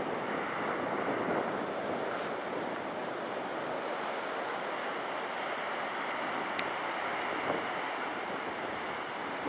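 Airbus A380's four jet engines at takeoff thrust on the takeoff roll, a steady rushing noise, mixed with strong wind buffeting the microphone.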